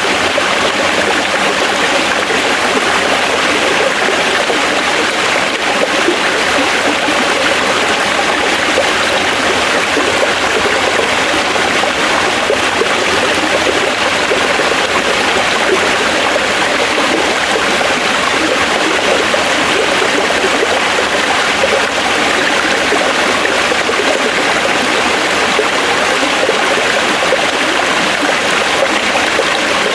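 Forest stream flowing over rocks: a steady, even rushing of water with a trickling burble.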